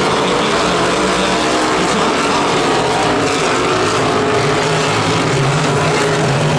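A pack of dirt-track race cars running laps, several engines at high revs overlapping in a loud steady drone, with one engine's note growing stronger past the middle.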